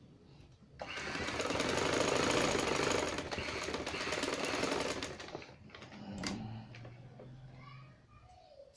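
Sewing machine stitching through fabric at a fast, even rate for about four and a half seconds, starting about a second in, then slowing and stopping. A single sharp click follows.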